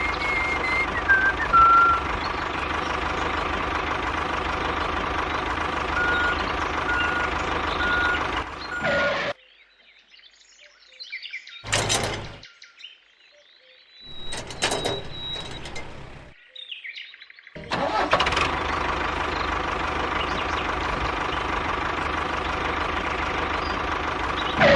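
Engine-like motor running steadily, with a series of short evenly spaced beeps partway through. It cuts out about nine seconds in, a couple of brief sounds follow, and it runs again from about eighteen seconds.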